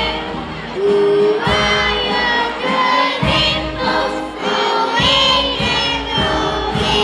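Music with a group of voices singing together over a steady beat of about one a second.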